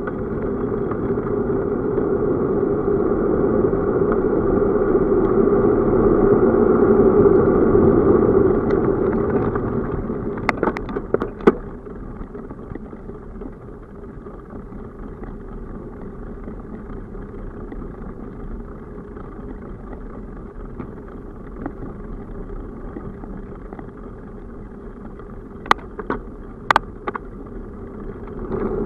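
Riding noise from a bicycle-mounted camera: a steady rush of wind and tyres on asphalt, sped up to double speed, louder for the first ten seconds or so. A few sharp clicks or rattles come near the middle and again near the end.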